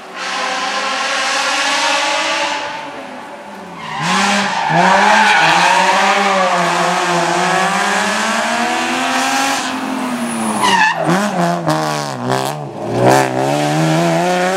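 BMW E36 3 Series rally car at full stage pace, its engine revs climbing and falling again and again through the gears. Near the end, as it reaches and passes, the revs swing up and down quickly several times, the loudest moment coming about thirteen seconds in.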